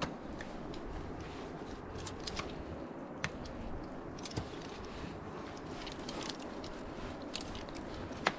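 Scattered sharp clicks and metallic clinks of ice-climbing gear at a belay: carabiners, rope and hardware shifting as rope is taken in. These sit over a steady low rush of background noise.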